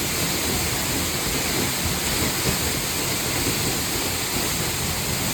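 Waterfall: a steady, even rush of falling water that cuts off abruptly at the end.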